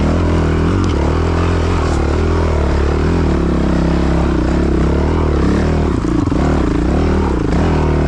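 Dirt bike engine running hard under load on a hill climb, its revs rising and falling, with the pitch swinging more often in the last few seconds.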